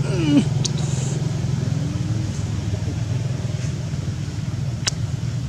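A steady low mechanical hum, like an engine running, with a short falling squeal about a third of a second in and a single sharp click near the end.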